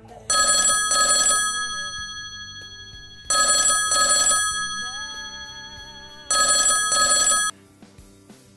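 iPhone ringing with an incoming call: three rings about three seconds apart, each a quick double ring, cutting off suddenly after the third.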